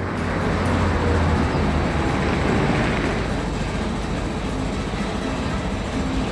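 A steady mechanical rumble with a fast rattle, a cartoon machinery sound effect that starts abruptly and keeps going at an even level.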